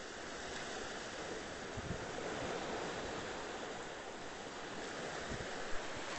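Ocean surf washing steadily onto a beach, swelling and easing, with wind rumbling on the microphone in a couple of short gusts, the last near the end.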